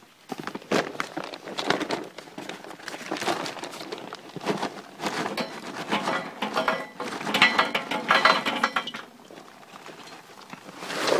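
Charcoal briquettes being poured into a Slow 'N Sear's stainless steel basket in a Weber kettle grill: a dense clatter of briquettes knocking against each other and the metal, with one louder knock at the very end.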